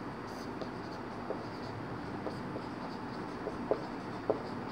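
Marker pen writing on a whiteboard: faint scratchy strokes and light ticks, two sharper taps near the end, over steady room hiss.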